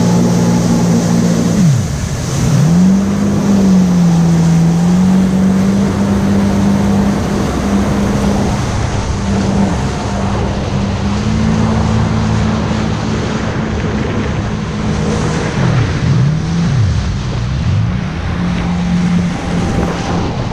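Yamaha personal watercraft (jet ski) engine running at speed, with water rushing and spraying along the hull. The engine pitch dips and climbs back once about two seconds in and twice in quick succession near the end, as the throttle is eased off and opened again.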